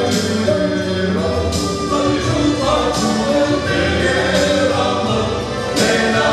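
Male voice choir of eight men singing a hymn together, with several sustained vocal lines at once.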